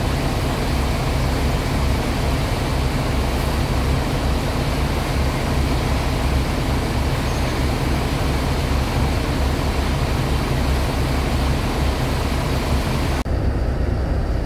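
Steady low rumble of an idling diesel bus engine with a hiss over it. Near the end it turns suddenly duller, heard from inside the bus.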